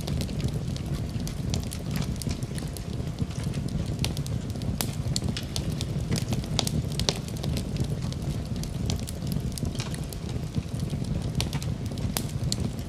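Wood fire crackling in a fireplace: a low steady rumble of flames with frequent sharp, irregular pops and snaps.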